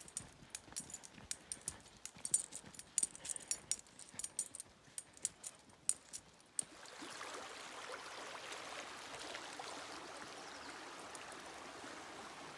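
A dog's collar tags jingling in quick, irregular clicks as it walks on leash. About six and a half seconds in, the sound cuts abruptly to a small creek flowing steadily over a shallow bed.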